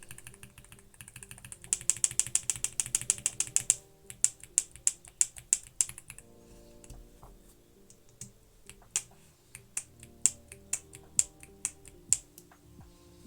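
Mechanical keyboard with factory-lubed linear switches whose stems and bases run on ball bearings, being typed on: a fast run of keystrokes about two seconds in, then slower single presses, a pause, and more spaced presses near the end.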